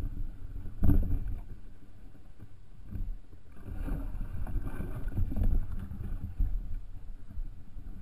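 Low, uneven rumble and knocking of a small fishing boat on the water, with a sharp knock on the camera's mount about a second in.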